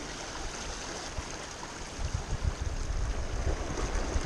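Seawater washing and swirling against the jetty rocks, a steady rushing hiss. From about two seconds in, wind buffets the microphone with low rumbling.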